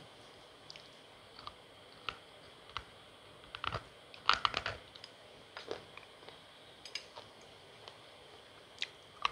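Dry, crisp crunching as a hardened lump of slate-pencil paste is bitten and chewed close to the mouth: scattered small crackles, a burst of loud crunches about four seconds in, and another sharp crunch near the end.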